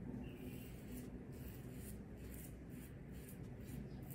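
A 1940s Gillette Super Speed double-edge safety razor with a fresh Schick blade scraping through lathered stubble in a series of short strokes, a faint raspy scratching with each pass.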